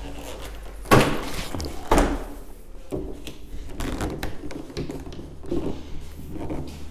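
Sliding patio door panel being handled, knocking against its frame: two sharp thunks about one and two seconds in, then lighter knocks and rubbing.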